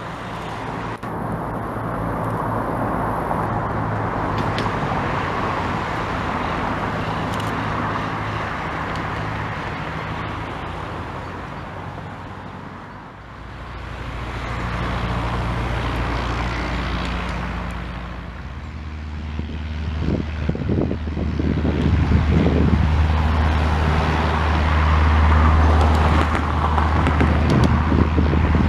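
Light single-engine piston propeller aircraft running on the ground, a steady engine-and-propeller drone that grows much louder in the second half as a Cessna 152 rolls past.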